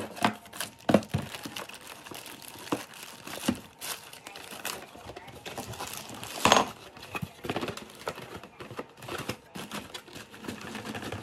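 Cardboard and paper packaging inserts and plastic bags rustling and crinkling as hands dig through a small parts box, in irregular crackles, with one louder crackle about six and a half seconds in.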